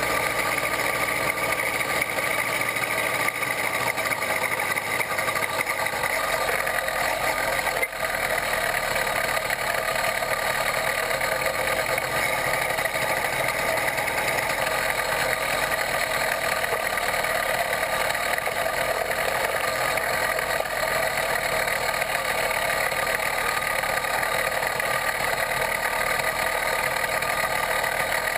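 66/80cc Chinese two-stroke bicycle engine kit running steadily under way on a motorized bicycle.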